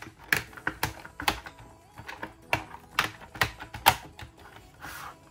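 Sharp, irregular clicks and snaps as a disc-bound notebook's back cover is pressed onto its plastic binding discs, about a dozen clicks in quick succession.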